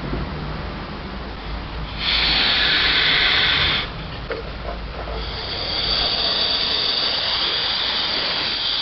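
Electric hospital bed moving back to its flat default position after the CPR button is pressed: a low motor hum throughout, with a spell of hissing about two seconds in and a higher-pitched hiss from about five seconds in.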